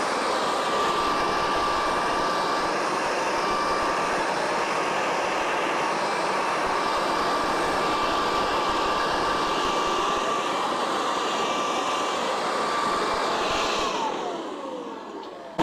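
Corded electric leaf blower running steadily with a high whine, switched off near the end, its motor whine falling as it spins down.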